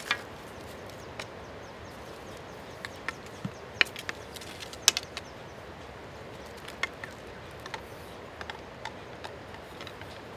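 Scattered small clicks and taps as a wire barb is worked onto a wooden fishing-arrow shaft by hand, the two sharpest near the middle, over a steady background hiss.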